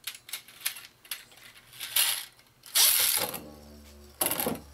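Top Plate spinning disc launched into a plastic Beyblade stadium. Light clicks first, then the disc lands with a clatter about three seconds in and spins with a falling ring, and another clatter comes near the end.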